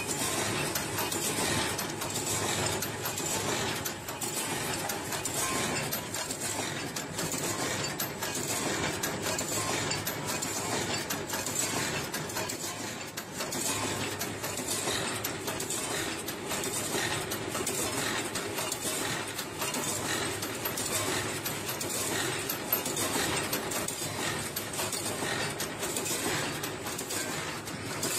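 Automatic poultry-cage wire mesh welding machine running, with a steady mechanical clatter full of quick metallic clicks and clinks.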